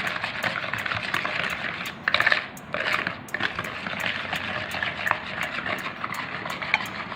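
A mixing utensil scraping and clattering in a mixing bowl as egg is beaten by hand into creamed butter and sugar, busy and continuous, with a louder flurry about two seconds in.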